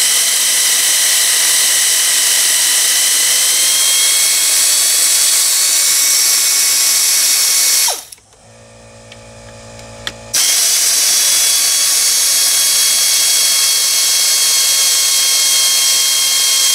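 Pneumatic air ratchet running, a steady high whine over the hiss of its air exhaust, spinning out the 8 mm bolts of the power steering plate on a Ford F-150's 5.4 V8. It runs for about eight seconds, stops for about two seconds with a single click, then runs again until near the end.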